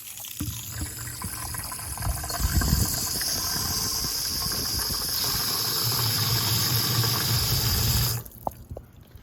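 Hoover Elite SpinScrub carpet cleaner's motor running with a loud rush and a high whine that builds about two seconds in, then switched off abruptly near the end. The motor sounds like complete trash to its owner, a sign of a rough or worn motor.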